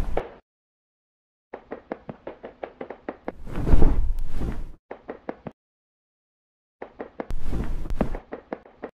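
Sound effects for an animated creature: quick runs of sharp clicks and knocks, two of them rising into a louder rushing swell, separated by stretches of dead silence.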